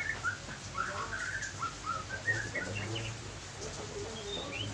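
Small birds chirping, many quick high chirps one after another.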